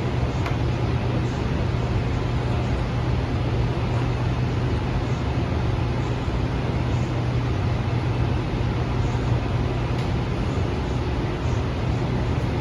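Steady low hum and rumble inside a Shenzhen Metro Line 1 train, a CSR Zhuzhou Type A car, with an even, unchanging level throughout.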